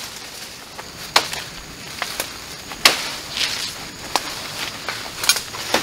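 Rubber tree leaf stalks and twigs snapped off by hand: about six sharp snaps spread over a few seconds, with leaves rustling between them.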